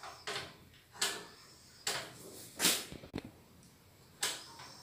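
Portable butane stove's piezo igniter clicking about five times, roughly a second apart, each click trailing off briefly, as the knob is turned again and again to light the burner.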